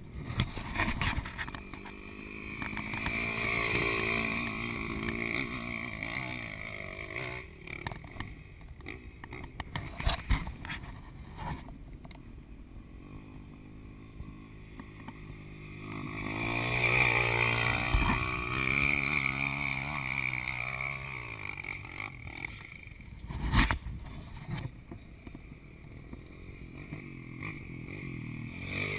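Off-road motorcycle engine revving up and down as it rides a trail, swelling twice, with scattered knocks and thumps and one sharp knock near the end.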